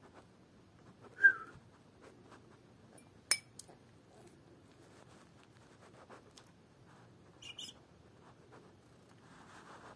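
A young puppy giving a few short, high squeaks, the loudest about a second in and a quick double squeak near the end, with one sharp click a little after three seconds.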